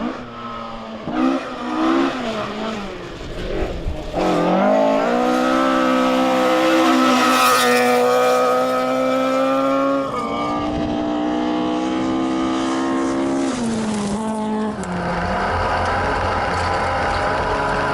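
Ford Escort RS 1800 rally car's four-cylinder engine at high revs, dipping and climbing again through quick gear changes, then held high and steady for several seconds. Near the end the driver lifts off and the engine settles into a lower, rougher note.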